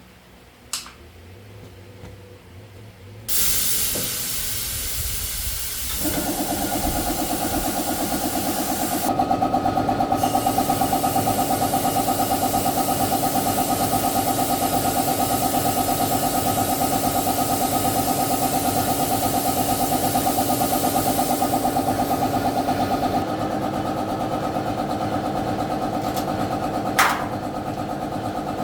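A loud hiss starts a few seconds in. Shortly after, a motor-driven machine starts and runs steadily with a rapid pulsing. The hiss stops near the end while the motor keeps running, and there is a single sharp click just before the end.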